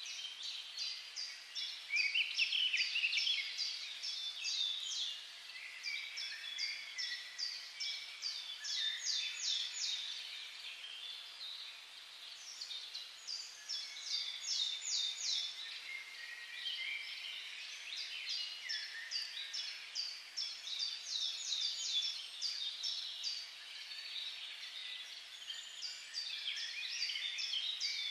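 Wild birds calling in a chorus: repeated trains of rapid, high, downslurred notes, several a second, come and go over scattered lower chirps. A faint steady hum sits underneath.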